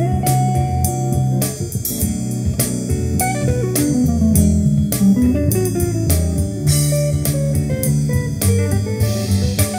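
Guitar-led music with bass and a steady beat, played back through a Grundig V304 integrated stereo amplifier and a pair of speakers to demonstrate the amplifier's sound.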